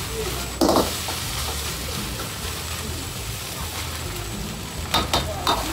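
Fried rice sizzling in a wok over a roaring gas burner, with a steady hiss. A metal ladle strikes the wok sharply about a second in and twice more near the end as the rice is stirred.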